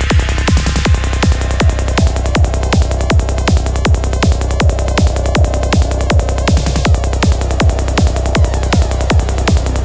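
Dark psytrance at 160 BPM: a steady four-on-the-floor kick drum with a rolling bassline, and a held synth tone that comes in a few seconds in.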